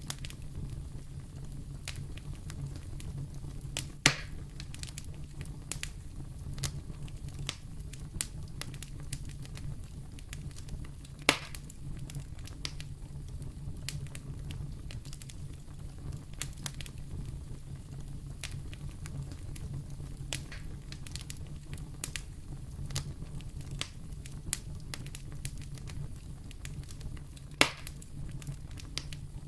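Wood fire burning in a fireplace: a steady low rumble of flames with frequent small irregular crackles and three louder pops.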